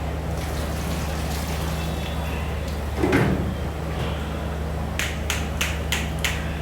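Kitchen handling over a steady low hum: a bump about three seconds in, then six quick sharp taps or clicks in a row near the end.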